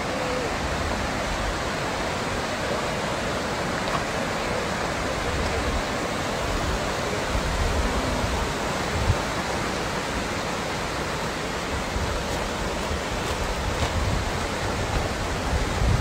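Steady rushing of a rocky mountain river, its water running white over stones and rapids.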